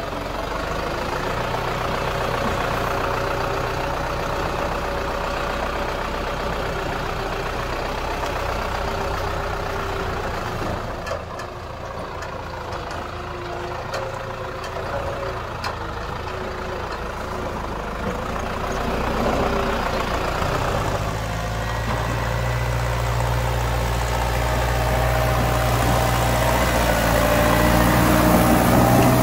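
Tractor's diesel engine running steadily, easing off somewhat about a third of the way in, then pulling harder and growing louder over the last third.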